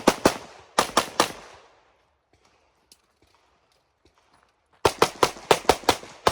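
Rapid pistol shots in a practical-shooting stage: two quick groups of two or three shots in the first second and a quarter, a pause of about three and a half seconds, then a fast string of about seven shots at roughly five a second near the end.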